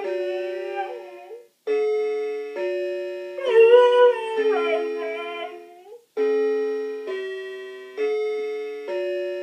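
A musical doorbell chime plays a tune, each ringing note starting about a second after the last and fading away, while a Siberian Husky howls along in a wavering, rising and falling voice. The howl is loudest about four seconds in.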